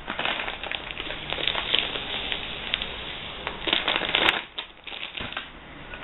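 Crinkling and rustling of a plastic Quaker food bag being picked up and handled: a dense run of quick crackles that thins out and stops near the end.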